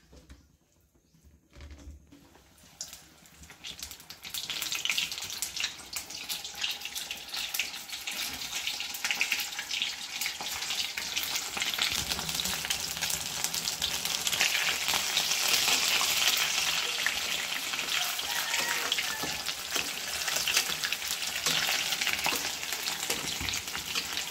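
Besan-battered small fish pakoras deep-frying in hot oil in a kadhai: a dense, crackling sizzle that starts about three to four seconds in and stays loud.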